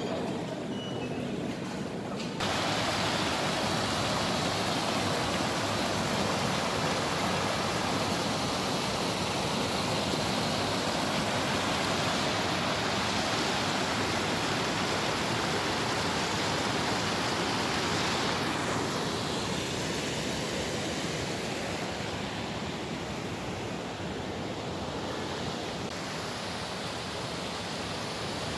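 A loud, steady, even rushing hiss that starts abruptly about two seconds in and holds without a break, easing slightly near the end.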